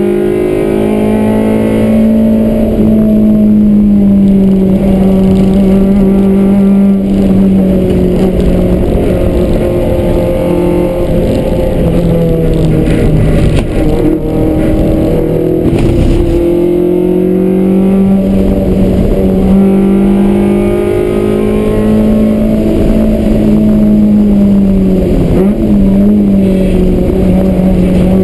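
Toyota AE86's engine running hard at high revs from inside the cabin on track, its pitch rising and falling with throttle and gear changes. The note drops and climbs again about halfway through and once more near the end.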